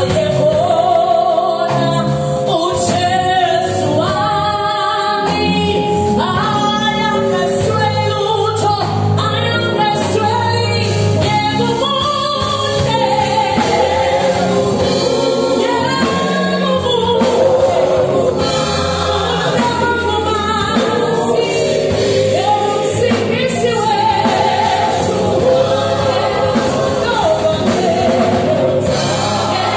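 Live gospel praise-and-worship singing by a small group of female and male vocalists on microphones. The singers hold and bend sung lines over steady instrumental backing, with a drum kit among the instruments.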